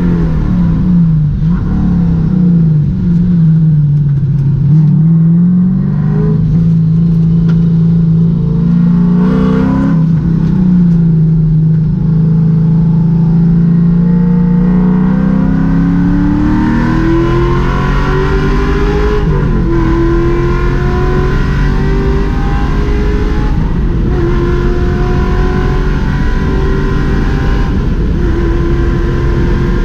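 V8 engine of a Porsche 968 race car heard from inside the cockpit on track, its pitch dipping and rising through braking and downshifts in the first few seconds, holding steady, then climbing under hard acceleration. About two thirds of the way in, the note drops sharply at an upshift and climbs again.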